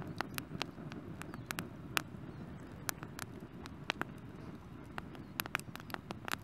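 Wood campfire crackling: irregular sharp pops and snaps over a low, steady rumble.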